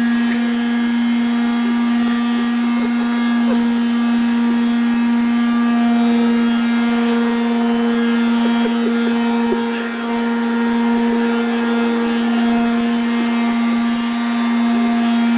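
Vacuum cleaner motor running steadily with a constant whining hum.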